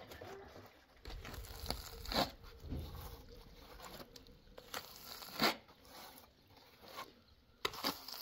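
Plastering trowel scraping and spreading wet cement mortar onto a concrete-block wall, in a few short, separate strokes.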